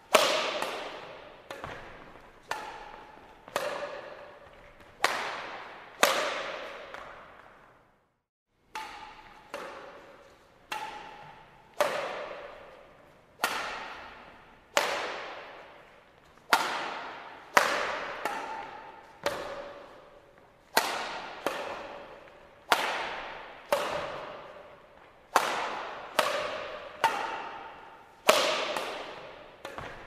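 Background music of sparse struck notes, each ringing away after a sharp attack, about one or two a second, with a brief break about eight seconds in.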